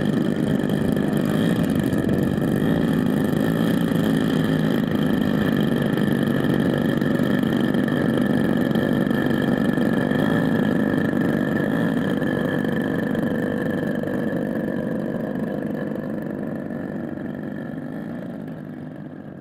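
Twin engines of a large radio-controlled Heinkel He 111 scale model idling on the ground with propellers turning, a steady drone that fades out near the end.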